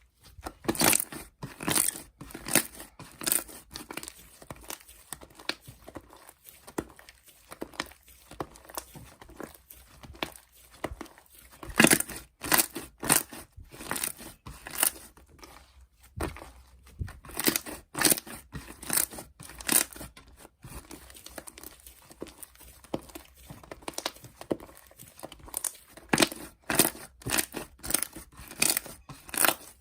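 Irregular crinkling and tearing noises, coming in short clustered bursts with louder runs scattered through.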